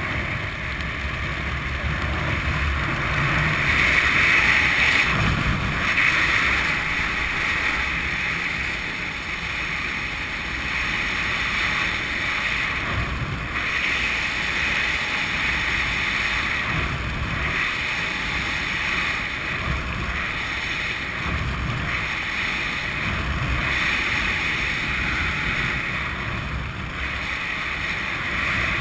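Wind rushing over a helmet camera's microphone during a descent under an open parachute canopy: a steady hiss over a gusty low rumble that swells and eases every few seconds, loudest about four to six seconds in.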